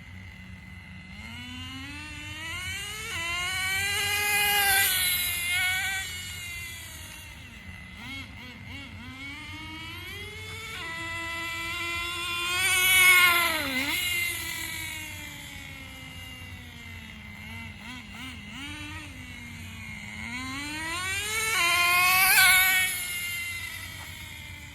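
Nitro RC car's small glow-fuel engine revving high as the car drives past three times. Each pass swells in loudness and rises in pitch, and on the second and third passes the pitch drops sharply as the car goes by close.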